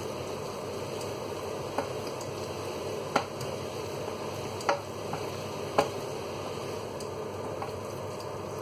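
Spaghetti being tossed and stirred in a stainless steel saucepan with a wooden spatula over a steady sizzle, with four sharp knocks of the spatula against the pan, the second the loudest.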